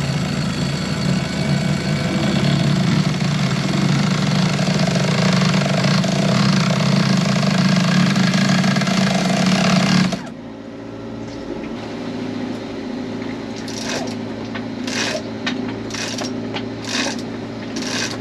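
Loud, steady machine running aboard a sailboat, with a dense low hum, cut off suddenly about ten seconds in. A quieter hum remains, with a few sharp knocks near the end.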